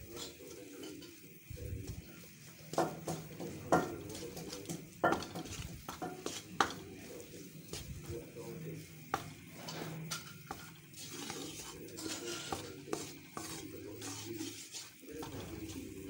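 A spatula stirring and scraping flour frying in ghee around a metal kadai, with irregular clicks and scrapes against the pan, loudest a few seconds in, over a faint sizzle. The flour is being fried on low heat to take away its raw taste.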